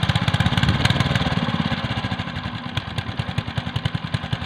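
Hand tractor engine driving a rotavator in a rice paddy, running with a rapid, even chugging that slowly fades over the second half.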